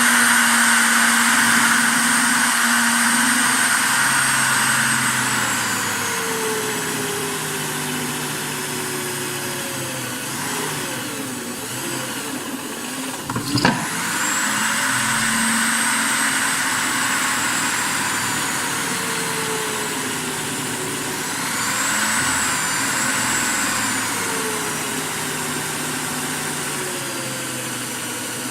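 Electric drill boring holes through 2 mm mild steel square tubing, the motor's pitch sagging and recovering as the bit bites into the metal, with one sharp click about halfway through.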